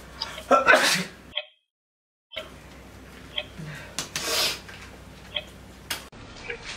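A person's loud sneeze-like burst about half a second in, then the sound cuts out completely for about a second. Scattered small clicks and a short hiss follow.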